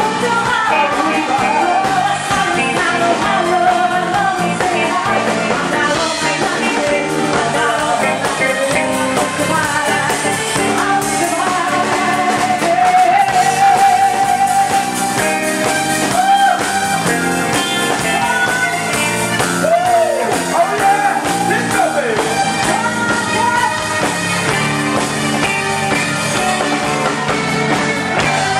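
Live band playing with a singer, vocals over drums and keyboard.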